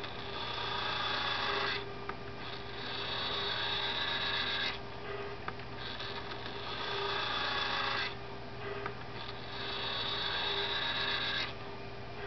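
Electric turnout switch machines on a model railroad layout, whining in four separate throws of about two seconds each, with a short click between throws.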